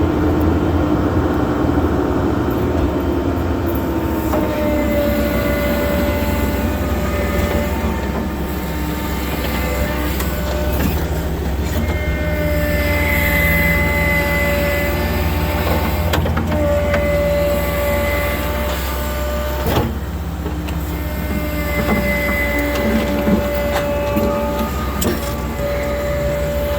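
Case 580 Super N backhoe's diesel engine running steadily under load while digging, with a hydraulic whine rising and dropping away every few seconds as the controls are worked, and a few sharp knocks.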